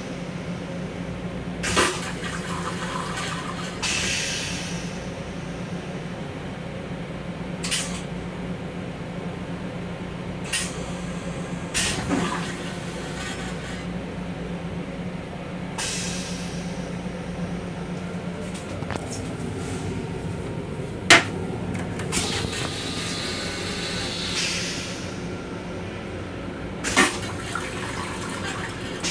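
Steady low hum in an M7 commuter railcar's restroom, with scattered sharp clicks and knocks and several brief hisses of about a second each.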